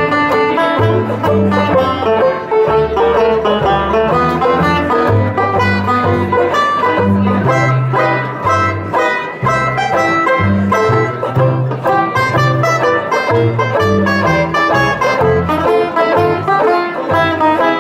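Two banjos and a string bass playing a jazz tune with no singing: the banjos strum and pick busy chords and melody over a steady line of low bass notes.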